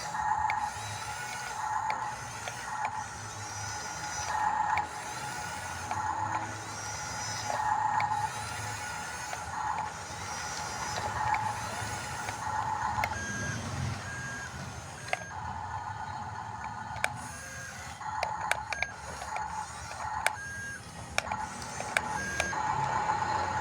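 Radio-controlled model bulldozer's electric drive motors and gearboxes whining in short repeated bursts, about one a second, as it moves in starts and stops. A few sharp clicks come in the second half.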